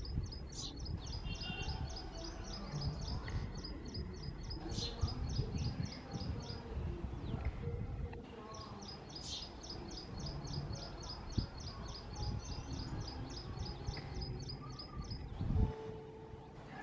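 Male house sparrow chirping nonstop at its nest box: a fast, even run of short high chirps, about four or five a second, broken by a short pause in the middle. A low background rumble runs underneath.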